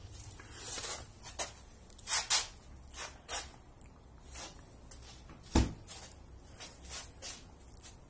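Light clicks and rustles of handling, then the door of an old bar fridge thumping shut about five and a half seconds in.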